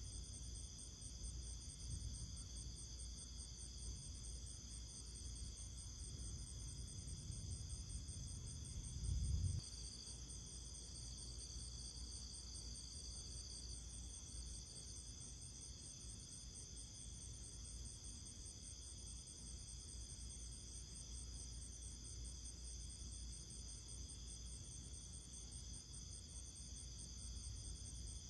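Insect chorus: several steady high trills at different pitches, one of them rapidly pulsing, over a low rumble. About nine seconds in there is a brief, louder low bump.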